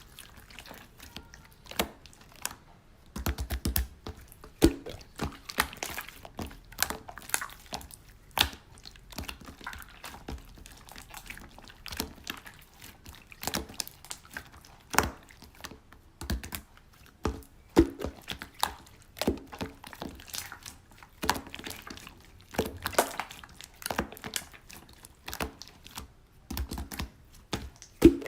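Slime being squished and poked by hand, making many irregular sharp clicks and small pops.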